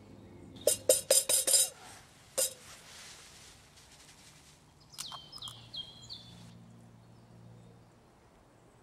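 Metal clinks and knocks as a frying pan is handled on a small metal pot stove: a quick run of them about a second in, then one more a moment later. A few softer clicks and a short high chirp follow in the middle.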